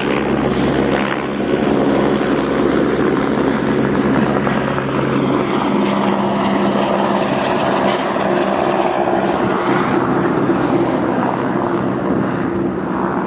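Airbus AS350 (H125) single-engine turbine helicopter running, a loud steady drone of turbine and rotor with low steady tones that hold level throughout.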